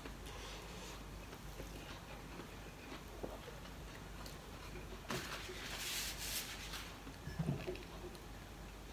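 Faint eating sounds from someone eating rice with bare fingers off a plate: small clicks and smacks, a breathy hiss of noise a little past halfway, and a soft low knock near the end as a heavy glass mug is picked up.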